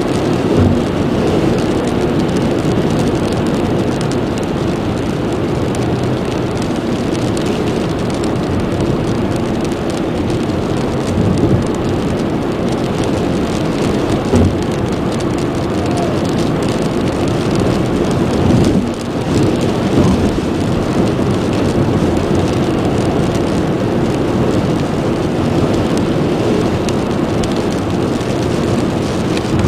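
Heavy rain pouring down steadily, with a few brief louder surges.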